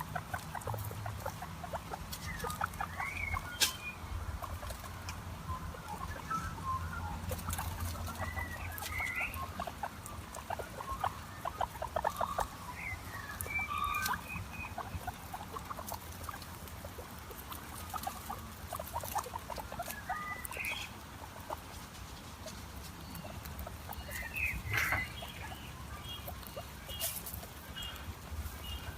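Guinea pigs squeaking in short chirp-like calls every few seconds, over quick runs of soft clicks and a low steady hum, with one sharp click about four seconds in.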